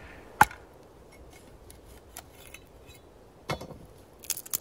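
A machete blade strikes through a thin stick of split wood with one sharp knock about half a second in. Near the end there is a duller knock and a quick run of light clinks as the machete is set down on the wooden bench.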